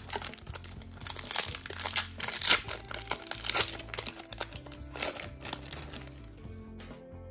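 Foil Pokémon booster pack wrapper crinkling as it is torn open and the cards are pulled out, with background music underneath.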